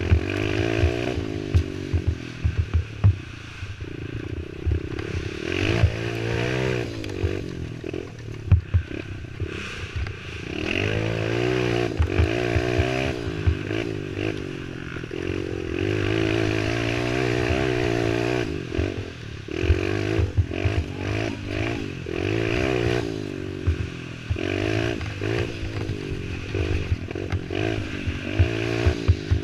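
Youth racing quad's engine revving up and easing off again and again with the throttle, its pitch rising and falling every second or two. Frequent sharp knocks and rattles as the quad bounces over rough ground.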